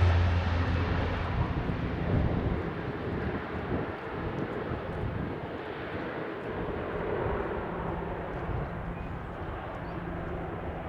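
Boeing 777-200ER airliner's GE90 jet engines after landing, the engine noise fading steadily as the aircraft slows on the runway. A low steady hum dies away in the first couple of seconds.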